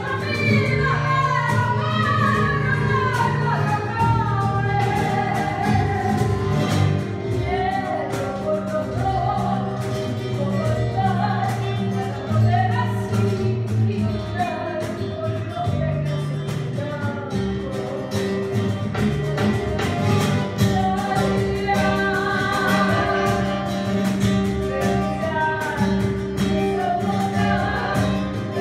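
Live Argentine tango song: a voice singing a melody over acoustic guitar accompaniment.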